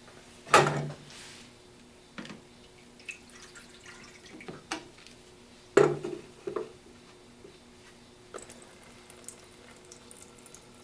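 Water running and dripping through the freshly cleaned and sprung spray head of a Bunn coffee brewer, now flowing freely, over a faint steady hum. Two sharp loud knocks, about half a second in and just before six seconds in, and a few lighter knocks.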